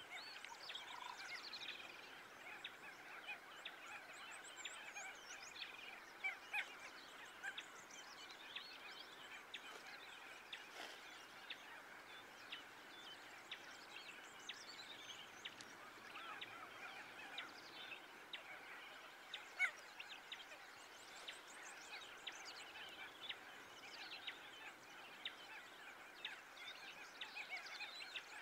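Faint, continuous chorus of many birds chirping and calling, full of short quick chirps that rise and fall in pitch.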